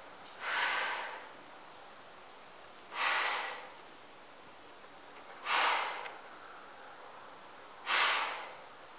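A woman's forceful exhalations while doing push-ups, one with each repetition: four sharp puffs of breath about two and a half seconds apart, each starting suddenly and fading quickly.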